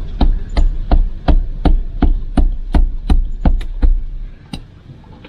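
About a dozen sharp taps, roughly three a second, knocking the locknut of a conduit fitting tight on an electrical box; they stop shortly before the end.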